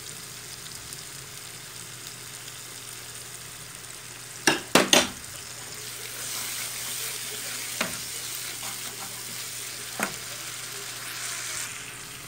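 Thick masala paste sizzling in hot oil in a frying pan, just splashed with vinegar, as it is stirred; the sizzle brightens about halfway through. Sharp knocks of the spoon against the pan, three in quick succession a little before halfway, then two single ones later.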